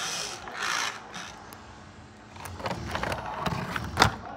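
Plastic toy wheel loader being handled and turned over by hand: irregular rubbing and scraping of plastic, with a sharp knock about four seconds in.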